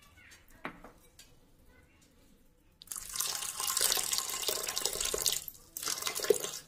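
Water poured into a metal pressure cooker onto washed split green moong dal, splashing steadily. The pour starts about three seconds in, breaks off briefly near the end, then runs again.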